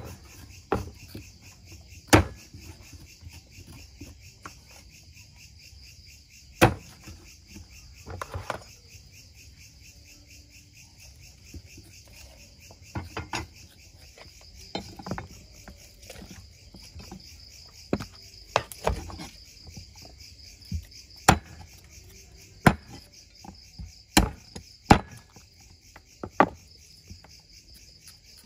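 Meat cleaver chopping a whole black-skinned chicken into pieces on a wooden chopping block: sharp, irregular chops one to several seconds apart, over a steady chorus of crickets.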